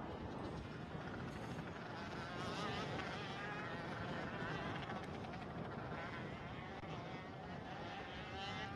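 Buzz of two-stroke ROK shifter kart engines heard at a distance, the pitch rising and falling as the karts accelerate, shift and slow through the corners.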